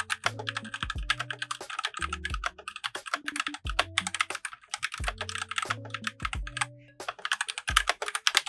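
Fast, continuous typing on a Surmen GT61 60% mechanical keyboard with Gateron Yellow linear switches and PBT keycaps: a steady stream of key clacks.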